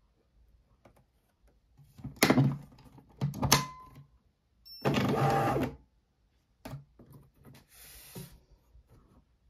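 Thermal label printer being loaded: sharp plastic clicks as the lid is pressed shut, twice, then its feed motor whirs for about a second as it advances the label roll. Fainter handling sounds follow.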